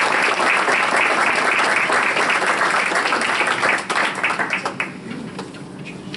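Small audience applauding, a dense spread of claps that thins out and dies away about four to five seconds in, leaving a few scattered claps.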